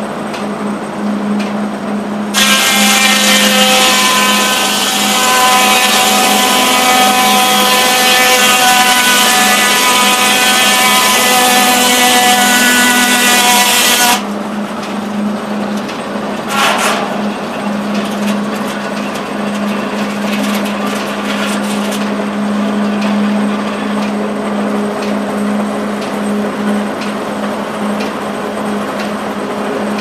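Steam-driven 1890s sawmill running with a steady hum. About two seconds in, the large circular head saw enters a log and cuts for about twelve seconds with a loud ringing whine, then stops suddenly as the blade leaves the cut. A short clatter follows a few seconds later while the mill keeps running.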